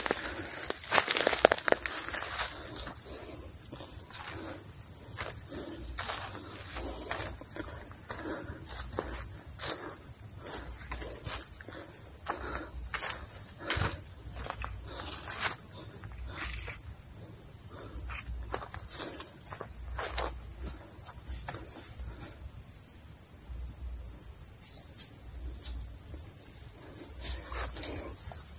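Cicadas droning in a steady, high-pitched chorus that grows louder and takes on a fast pulse toward the end. Scattered footsteps on the leaf-strewn forest floor sound over it, mostly in the first half.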